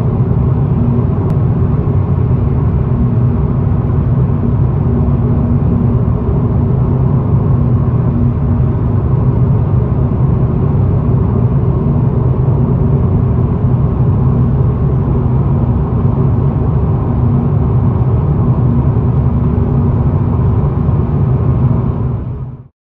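Steady low rumble of a car driving at highway speed, heard from inside the cabin: tyre and road noise with engine hum. It fades out quickly right at the end.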